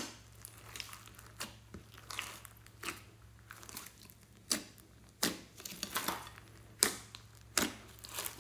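Hands squeezing and kneading a big mass of glossy slime mixed with small beads, giving sticky crackles and pops at irregular intervals, with several louder pops in the second half.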